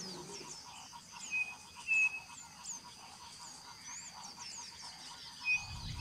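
Chorus of small frogs calling: many quick rising chirps over a steady high trill, with a few short, clear, louder peeps.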